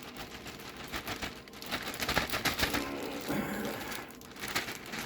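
Butter sizzling and crackling steadily in a hot preheated frying pan.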